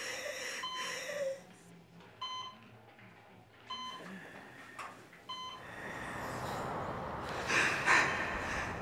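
Hospital patient monitor beeping an alarm, one short pitched beep about every second and a half, four in all. Its screen reads "PULSE SEARCH", so this is the monitor hunting for the patient's pulse. From about two-thirds of the way in, a rushing noise swells up and is loudest near the end.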